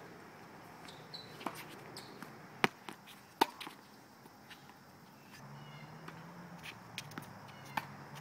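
Tennis rally on a hard court: a tennis ball struck by rackets and bouncing, heard as a series of sharp pops. The two loudest come close together, about two and a half and three and a half seconds in.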